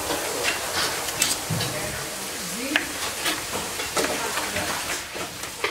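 Steady hissing background noise of a busy fish-cutting counter, with scattered sharp clicks and knocks of knives and fish handling on the board.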